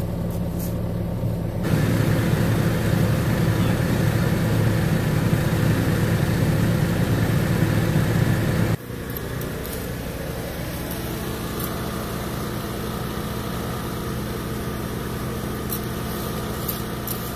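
Excavator engine running steadily at a low hum, louder from about two seconds in and quieter after a sudden break about halfway. A few light clicks and scrapes near the end.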